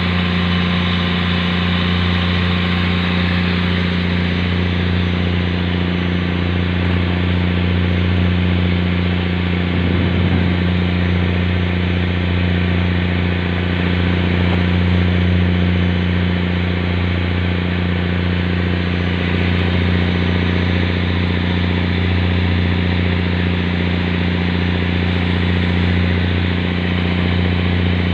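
A fishing boat's engine running steadily: an even, unchanging low drone with a deep hum.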